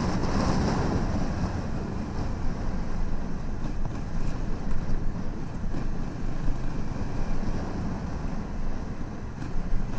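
Honda Africa Twin 1000cc parallel-twin motorcycle running as it is ridden along a wet, rutted gravel track, with wind rumble on the microphone.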